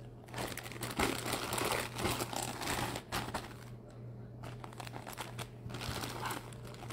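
Clear plastic bag around a folded football jersey crinkling as it is handled, in irregular bursts that are loudest in the first three seconds and sparser after.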